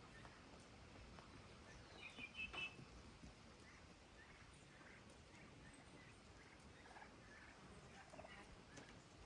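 A turkey gobbling faintly about two seconds in, with a few other faint bird calls scattered through an otherwise quiet background.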